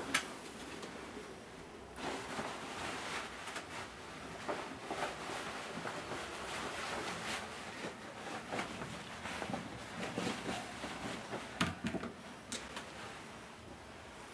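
Cloth jacket rustling as it is handled and put on, with a few sharp clicks, the loudest about three quarters of the way through.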